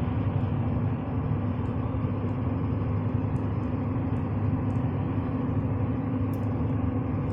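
2015 Chevy Silverado 3500 with the Duramax 6.6-litre V8 turbo-diesel driving along at a steady pace, giving a steady low drone of engine and road noise.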